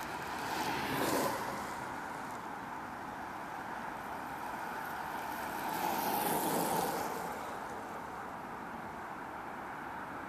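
Two human-powered racing vehicles pass close by one after the other: a fully faired velomobile about a second in, then a recumbent trike at about six and a half seconds. Each is a swell of tyre and wheel noise that falls in pitch as it goes by, over a steady outdoor hiss.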